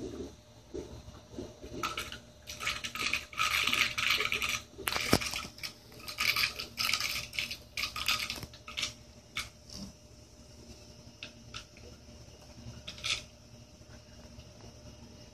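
Handling noise from a phone held against a telescope eyepiece: fingers rubbing and scraping, with a cluster of scratchy bursts in the first half and scattered clicks after.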